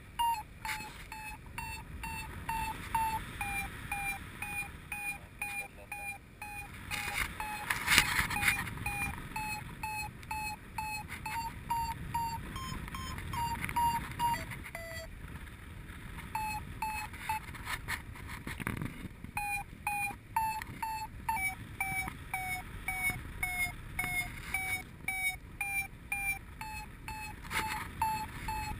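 Paragliding variometer beeping in short tones, about two a second, its pitch shifting up and down: the climb signal that the wing is in rising air. The beeping stops for a few seconds about halfway through, then resumes. Wind rushes on the microphone, with gusts about eight seconds in and again a few seconds after the beeping stops.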